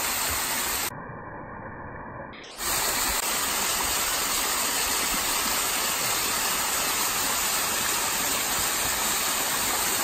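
Small waterfall cascading down a rock face: a steady rush and splash of falling water. About a second in it turns quieter and duller for a second and a half, then the full rush returns.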